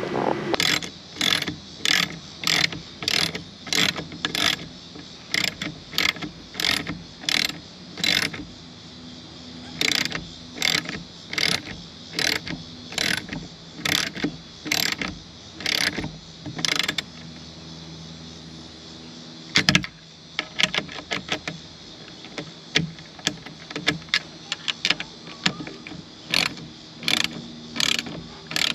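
Hand ratchet wrench tightening the bolts of a kayak J-cradle onto a roof-rack crossbar. It clicks in short bursts at about two strokes a second, pauses briefly past the middle, then resumes.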